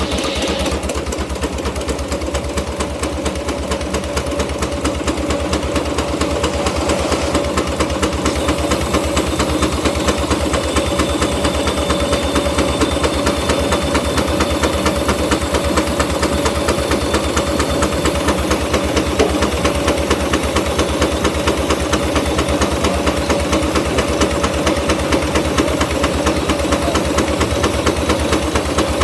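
Case portable steam engine running steadily, its exhaust beating in a rapid, even rhythm, with a steady tone held over it.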